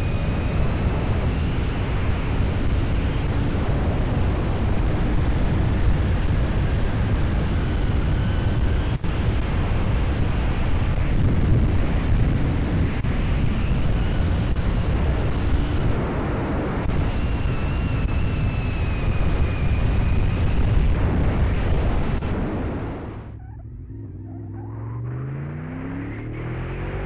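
Honda VFR750F V4 motorcycle at speed, heard through the onboard camera's built-in microphone with heavy wind noise over the engine. About 23 seconds in the wind noise falls away sharply as the bike slows. Then the engine's note is heard clearly, rising in pitch several times.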